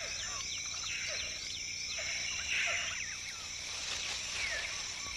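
Tropical rainforest ambience: a steady high insect drone under many short, falling chirps and calls from forest animals.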